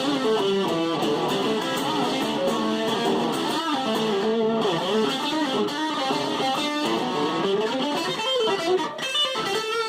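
Fender Stratocaster electric guitar played through a Fuzz Face fuzz pedal: a distorted lead run with bent notes and some strummed chords.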